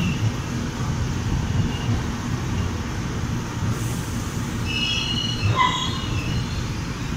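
Passenger train rolling slowly out of the station: a steady low rumble of wheels on track, with high-pitched wheel squeal about five seconds in, one squeal sliding down in pitch.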